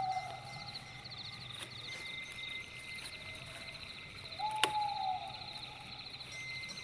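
Night insects chirping in fast pulsing trains over a steady high whine, with an animal call repeating about every four seconds: a short low note, then a longer higher note that rises, holds and falls away. A single sharp click about four and a half seconds in.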